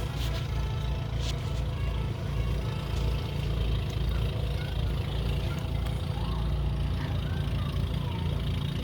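Craftsman snowblower's small engine running steadily.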